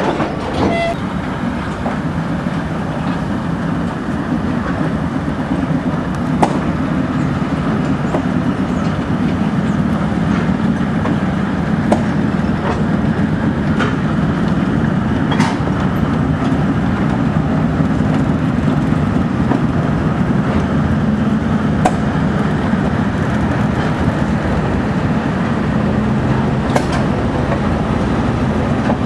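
Diesel engine of a TEM2 shunting locomotive idling, a steady low rumble with a few faint clicks.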